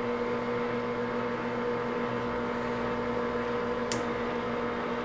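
Grizzly G4003 gearhead lathe running with a steady, even hum from its geared headstock during a light cleanup pass on a thread, the tool taking off very little. A single sharp click about four seconds in.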